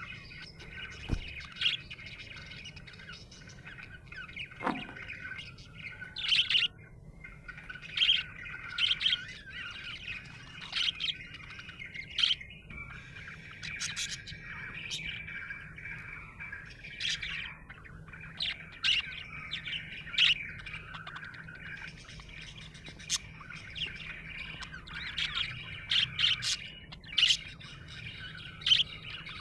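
Budgerigar chirping and warbling without pause, with frequent short, sharp, louder calls breaking through.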